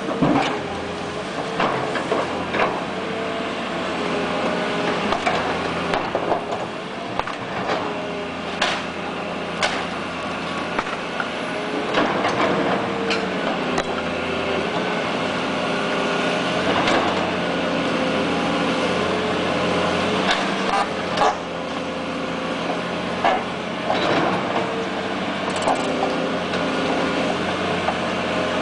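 Excavator working: its engine runs steadily with a hum that shifts in pitch as it takes load, and frequent sharp knocks and clatters of debris being handled sound over it.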